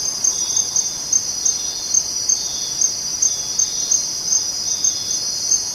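A steady, high-pitched insect trill like crickets chirping, with small regular pulses in it.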